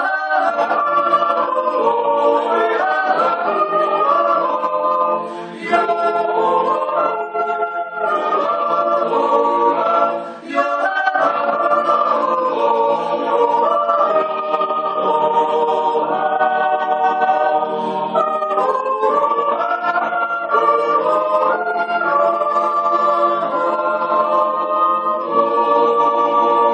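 Mixed choir of men's and women's voices singing a cappella in sustained close harmony, with short breaks between phrases about five and eleven seconds in.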